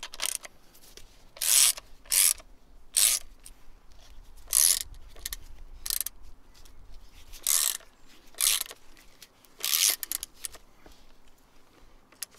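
Hand socket ratchet turning the top-mount nut on a front suspension strut: about eight short bursts of rapid clicking as the handle swings back, with pauses between. The nut is being run down to secure the strut's top mount over the newly fitted coil spring.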